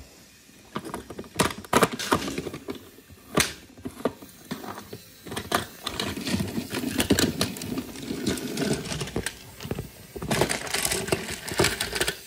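Wooden Brio toy trains and track pieces clattering, with irregular clicks and knocks of wood on wood.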